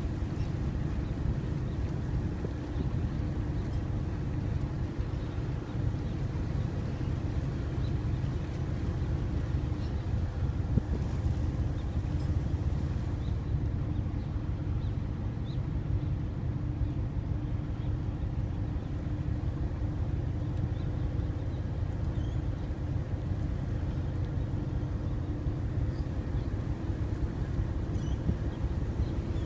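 Passenger ferry's engines running steadily under way: an even low drone with a faint steady hum, mixed with wind and water noise.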